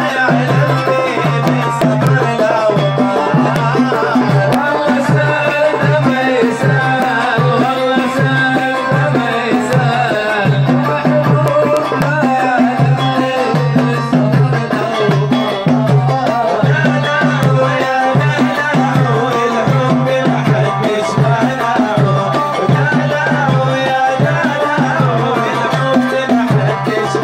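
Middle Eastern music with a fast, steady hand-drum rhythm under a wavering melody line.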